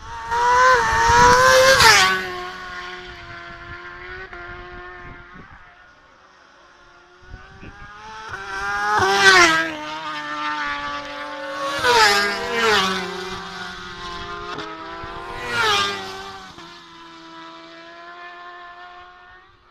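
Racing motorcycles passing one after another at speed. Each engine note climbs through the gears as the bike nears and drops as it goes past. There is one loud pass about two seconds in, then a run of three or four more between about nine and sixteen seconds.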